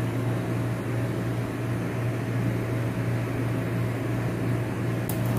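Steady low hum of an electric motor running, with a faint higher steady tone over it. A brief handling noise comes just before the end.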